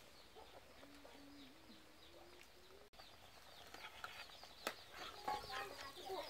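Faint chickens clucking in the background, with a few light clicks and clinks of the metal soup pot and ladle in the second half.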